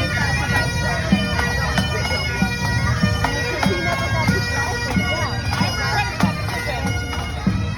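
Bagpipe music: steady drones under a melody, with a regular drum beat.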